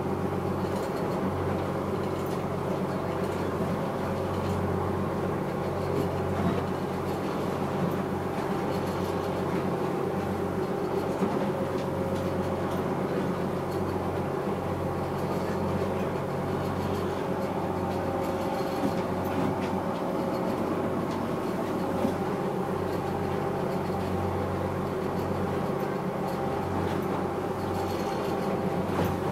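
Fishing boat's engine running steadily underway, heard from inside the wheelhouse as a low, even drone with a few short light knocks.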